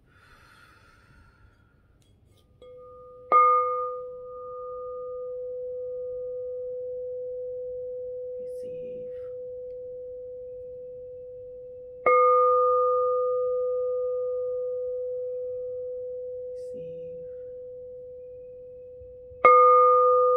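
Frosted crystal singing bowl struck three times, roughly every eight seconds. Each strike gives a bright overtone that fades within a few seconds over a long, steady low hum that keeps ringing and slowly dies away between strikes.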